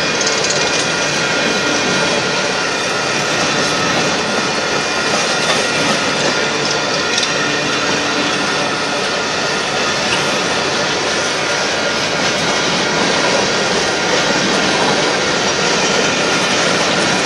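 Union Pacific coal train's coal cars rolling steadily past: a continuous loud din of steel wheels on the rails.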